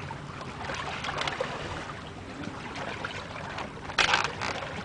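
Steady wind and water noise at sea aboard a small boat, with a short loud rush of noise about four seconds in.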